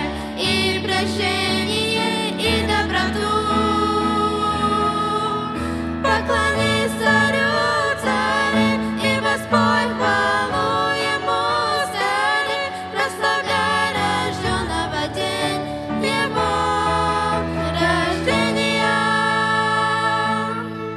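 Female vocal trio, a young woman and two girls, singing a Christmas hymn in Russian with piano accompaniment.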